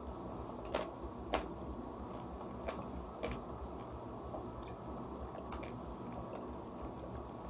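Quiet mukbang eating sounds from a chocolate-coated ice cream bar being bitten and chewed: a few sharp, crisp clicks, the strongest about a second and a half in, over a steady low background noise.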